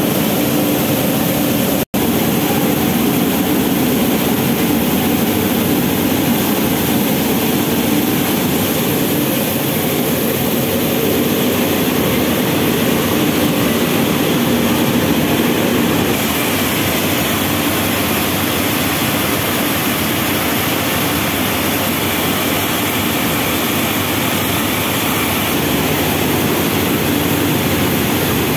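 Rice mill machinery running steadily: an even, dense mechanical noise of motors, rollers and grain moving through the mill. It cuts out for an instant about two seconds in.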